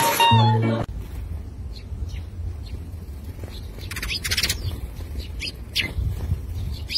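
Eurasian tree sparrows giving short, scattered chirps and fluttering their wings as they fly in to a hand, over a low steady rumble. It opens with the last moment of a strummed guitar piece, which cuts off under a second in.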